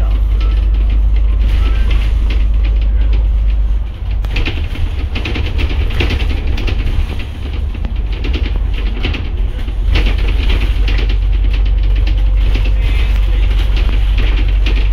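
Double-decker bus heard from the upper deck while driving: a loud steady low rumble with many small rattles of the body and fittings. The rumble dips briefly about four seconds in.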